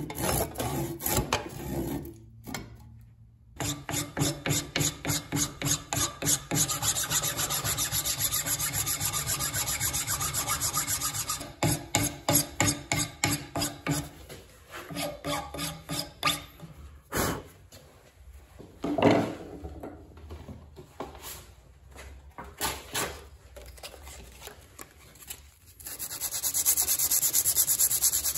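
A hand file rasping back and forth across the wooden wedge and handle end, trimming them flush with the top of a double-bit axe head's eye: rapid, even strokes for several seconds, then slower, scattered strokes. Near the end a sanding sponge rubs over the same spot with a steady hiss.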